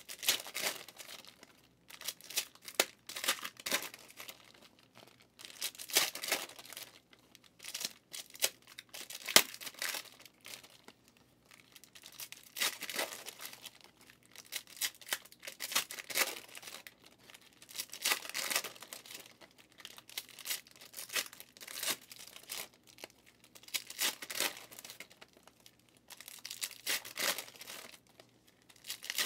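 Stiff trading cards handled in stacks, slid and flicked through by hand: short papery rustles, one every second or two.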